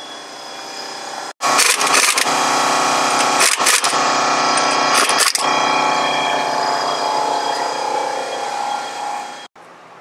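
Pneumatic impact wrench hammering on the axle nut at the centre of a Tesla Model S rear wheel, running for about eight seconds with three short, harder bursts. The nut is coming off so that the dried-out mating face between the CV axle and the wheel bearing, the cause of a clicking under drive load, can be re-greased.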